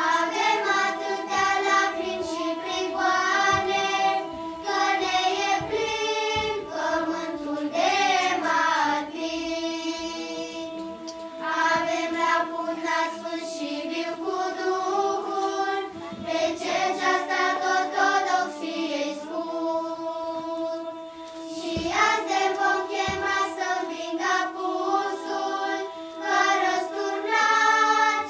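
Children's choir singing a Romanian song in phrases with short breaks, over steady held accompaniment notes.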